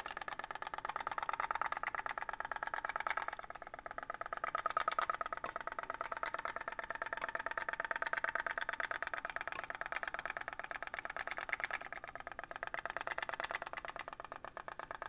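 Pop-pop (putt-putt) toy boat running: its candle-heated boiler, a thin chamber made from a soda can, putt-putts as a fast, even train of clicks that swells and eases a little in loudness.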